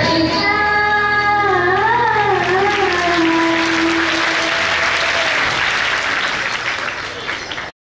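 The end of a Lavani song: a wavering, ornamented sung line that settles on one held note about four seconds in, while audience applause starts a little before it and carries on after. All sound cuts off abruptly near the end.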